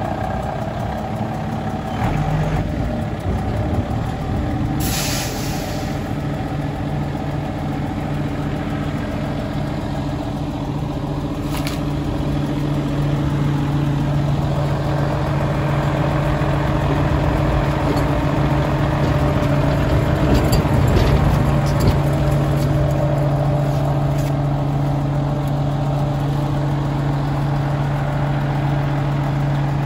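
1986 Volvo garbage truck's diesel engine idling steadily, its low hum growing stronger from about twelve seconds in. About five seconds in, a short burst of air hiss from the truck's air system.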